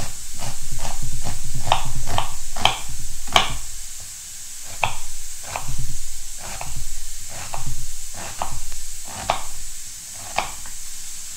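Kitchen knife slicing an onion on a wooden cutting board: short, sharp cuts at an uneven pace of roughly two a second, with a pause about four seconds in. A low rumble swells and fades underneath, and a pressure cooker hisses steadily in the background.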